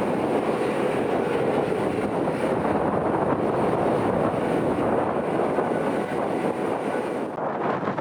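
Aircraft engines running with a steady, noisy rush, mixed with strong wind buffeting the microphone.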